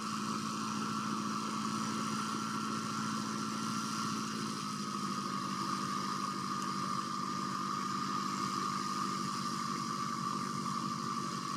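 A vehicle engine idling steadily with a fast, even pulse, under a steady high whine that drops slightly in pitch about four seconds in.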